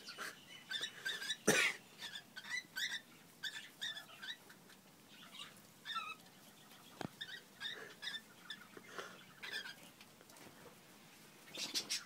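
Cockatiels mating, giving short, squeaky chirps in quick runs. There is a sharp click about a second and a half in, another around the middle, and a few more near the end.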